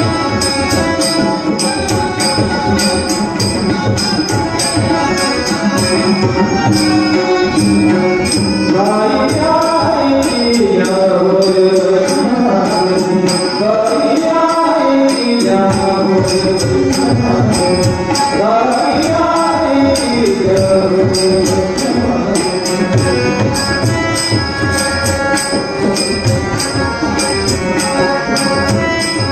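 Marathi bhajan accompaniment: a harmonium playing held notes and melodic runs that rise and fall, over a fast, even rhythm of drum and small cymbal strokes.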